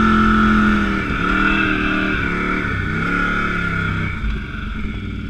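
Kawasaki Brute Force ATV's V-twin engine, bored out to 840cc, running under throttle. The revs dip and climb again about a second in and again around three seconds, then drop lower and quieter near the end as it eases off.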